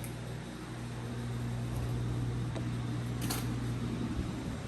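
Steady low mechanical hum with a faint even hiss over it, and a light click about three seconds in.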